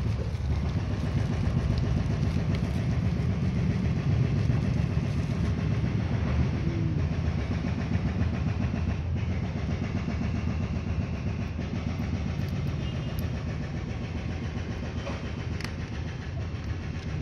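A steady low background rumble.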